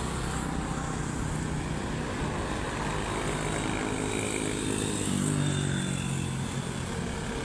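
A road vehicle's engine running amid steady traffic noise, its pitch climbing briefly about five seconds in as it speeds up. No horn sounds.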